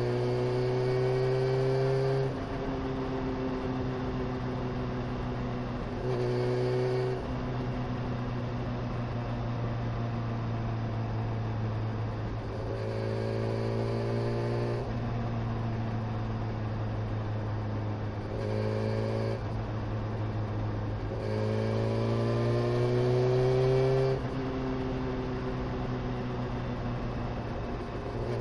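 Honda CBR motorcycle engine under way, its pitch climbing under throttle five times and dropping suddenly after each climb, as on gear changes or closing the throttle.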